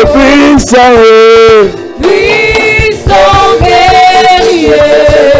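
Worship song sung by lead singers with the congregation, in long held notes over a steady drum beat.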